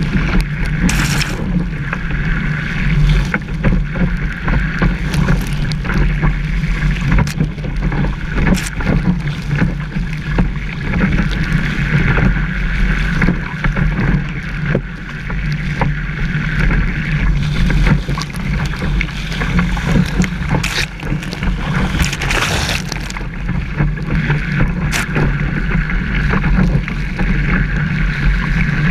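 Kiteboard skimming fast over choppy sea, heard close to the board: a steady rush of water and wind buffeting the microphone, with a low rumble and sharp splashes of spray every few seconds.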